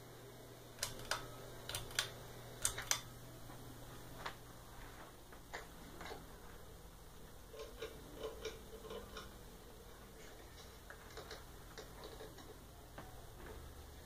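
Hampton Bay Landmark Plus ceiling fan running, a faint steady low hum under irregular sharp clicks and ticks, loudest and closest together in the first three seconds, then scattered and weaker.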